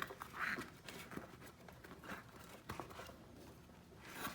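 Rubber inner tube being pushed by hand into a bicycle tire: a few soft, scattered scuffs and rubs of rubber.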